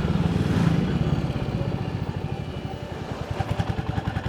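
Motorcycle engine running while riding, with a fast low pulsing beat that drops a little in level after about two seconds.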